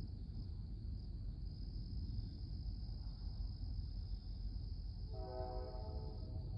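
A distant Norfolk Southern train horn sounds once, briefly, about five seconds in, for roughly a second. Crickets trill steadily throughout over a low steady rumble.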